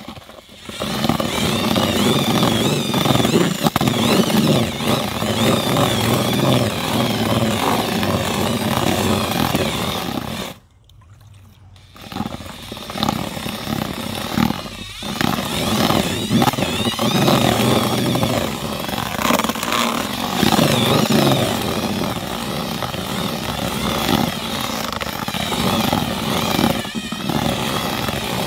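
Cordless drill with a paddle mixer running in a plastic tub, stirring damp fishing groundbait while water is added a little at a time. The motor's pitch wavers as the load and trigger change. About ten seconds in it stops for a second or two, then runs again.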